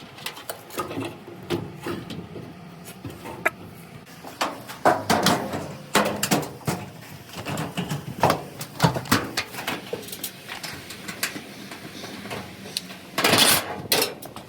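Irregular knocks, clicks and clanks, as of metal parts and tools being handled during dryer repair work, with a louder rush of noise about a second long near the end.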